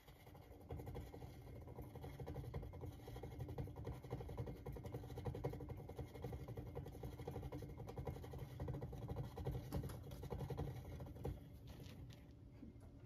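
A hamster running on a plastic exercise wheel: a fast, steady pattering of feet with the wheel's rumble. It drops away near the end.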